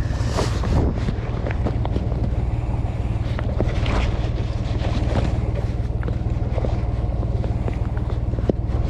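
Wind buffeting the microphone, a steady low rumble, with scattered light clicks and knocks on top.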